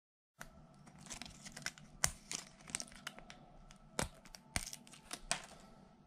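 Excess printed wood-filled PLA (brim and support scraps) being snapped and peeled off 3D-printed meeples by hand: a run of sharp crackling snaps, the loudest about two and four seconds in, over a faint steady hum.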